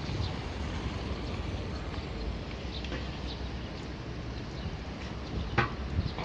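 Steady low outdoor rumble with a few faint clicks over it, and a sharp knock about five and a half seconds in, followed by a smaller one.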